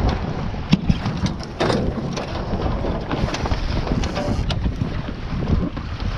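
Wind buffeting the microphone and water rushing along the hulls of a Taipan 5.7 sailing catamaran, a steady rumbling noise, with several sharp knocks and clicks from the boat's gear in the first few seconds.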